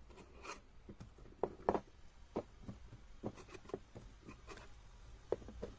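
Faint, irregular light taps and clicks over a low steady hum.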